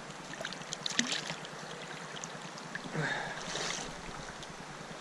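Shallow creek water running, with small splashes and clicks as a hand reaches into the water after a hooked brown trout; a louder splash about three seconds in as the fish is taken from the water.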